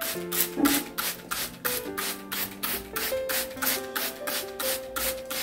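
Hand trigger spray bottle misting water onto succulent leaf-cutting offsets: quick, even hissing squirts, about four a second.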